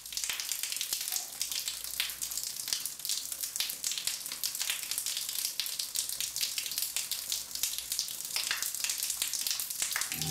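A steady crackling hiss, dense with fine clicks and pops.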